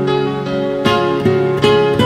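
Instrumental introduction of a slow pop love ballad: a held chord, then plucked notes starting a little under a second in, before the vocal enters.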